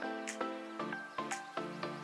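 Background music: a melody of quick, evenly paced notes over a steady beat.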